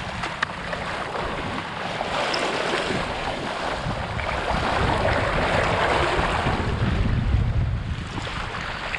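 Wind buffeting the microphone over sea water rushing and splashing past a surfski paddled downwind through choppy sea, the splashing and rushing swelling louder in the middle.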